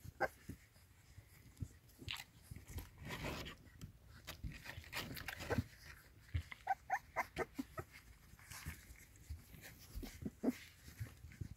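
Young puppies suckling at their mother's teats, with small wet clicks and nuzzling rustles. They give a run of short, high squeaks just past the middle and another near the end.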